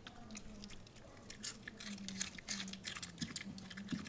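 Small dog chewing pieces of raw cabbage: crisp crunching bites, coming quickly from about a second and a half in and thinning out after three seconds.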